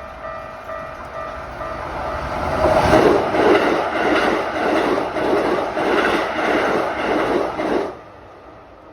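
A train passing close by, building to its loudest about three seconds in, then a regular clatter of wheels over rail joints about twice a second, cutting off suddenly near the end.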